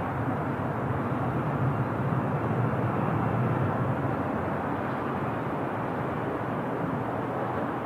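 Lockheed C-130H-30 Hercules's four Allison T56 turboprop engines at takeoff power as the aircraft lifts off and climbs away: a steady, deep engine noise.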